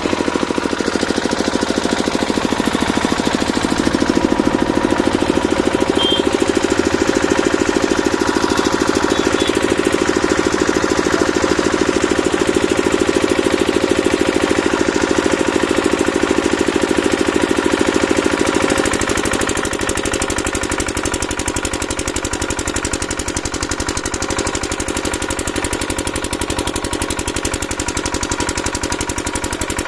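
A machine runs steadily with a fast, even pulse. Its sound eases a little and gets slightly quieter about 19 seconds in.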